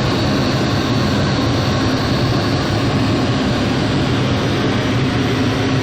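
Cleaver-Brooks fire-tube boiler's burner and blower fan running: a steady low hum under an even rushing noise.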